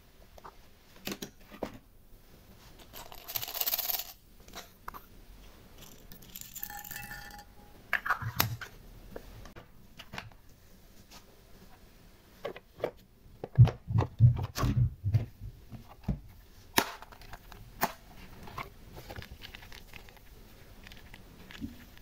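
Plastic toy kitchenware and small pieces handled and set down, with scattered sharp clicks and taps of hard plastic. There is a short rustling hiss about 3 s in and a brief squeak near 7 s. The loudest part is a quick run of duller knocks around 14 s.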